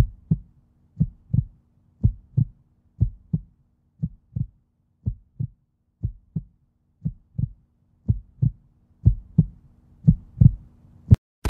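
Heartbeat sound effect: paired low thumps in a steady lub-dub, about one beat a second, over a faint steady hum. A single sharp click comes near the end.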